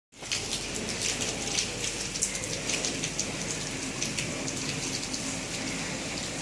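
Steady rain falling, with a dense patter of individual drops striking hard surfaces.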